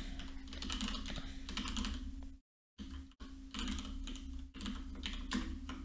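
Typing on a computer keyboard: clusters of rapid key clicks over a steady low hum. The sound cuts out completely for a moment a little over two seconds in.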